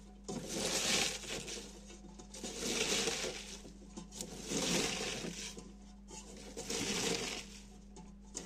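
Shredded fresh cabbage crunching and rustling as it is squeezed and kneaded by hand in a stainless steel pot. It comes in about four rounds roughly two seconds apart, the mashing that makes the cabbage release its juice.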